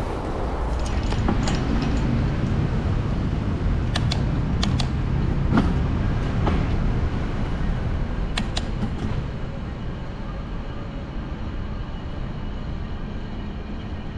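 Steady low rumble of wind and road noise while riding a bicycle along a street, with a few sharp clicks about four seconds in and again about eight seconds in.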